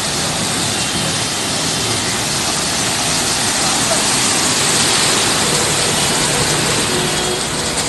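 A Tata truck's wheels churning through deep floodwater: a steady rush of splashing water, a little louder about five seconds in as the truck passes close.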